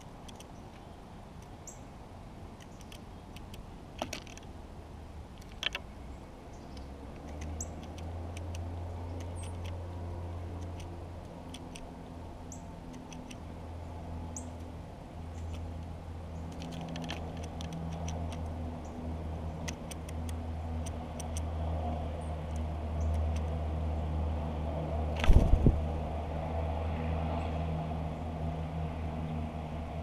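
A low, steady engine hum from a distant vehicle or machine, growing louder from about seven seconds in. Over it come scattered sharp taps of a blue jay pecking through sunflower seed on a wooden log feeder, a few faint high bird chirps, and a loud knock about twenty-five seconds in.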